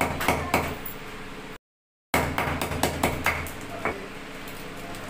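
Wooden rolling pin knocking repeatedly on chocolate bars in their wrappers against a stone counter, crushing the chocolate, about three sharp knocks a second. After a sudden short break, a few lighter taps and clicks as a spoon works the crushed chocolate into a small bowl.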